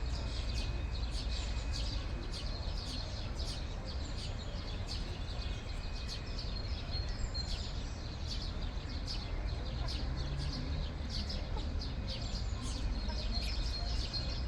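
Small birds peeping and chirping rapidly, several short high calls a second, over a steady low background rumble.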